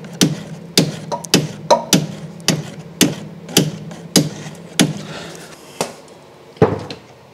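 Hammer striking a socket to drive it onto a seized, red-hot brake pipe nut at a rear drum brake back plate: a run of sharp strikes about two a second, slowing after about five seconds, with a last, duller knock near the end. The socket will not bite: it just turns on the rounded-off nut.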